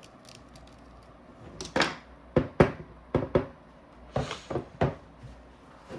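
A tool scraping and digging grime out of a paintball marker's body: a run of about ten short, sharp scrapes and clicks between about two and five seconds in.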